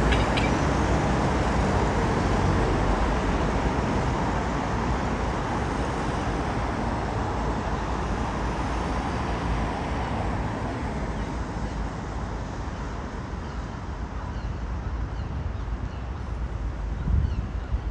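Road traffic noise, a vehicle's rumble and tyre noise loud at first and dying away over about ten seconds, leaving a quieter traffic hum.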